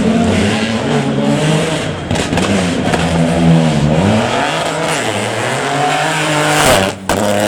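Rally car engine revving hard on a special stage, its pitch climbing and dropping through gear changes and lifts, with a dip about halfway through. The sound cuts out briefly and suddenly near the end.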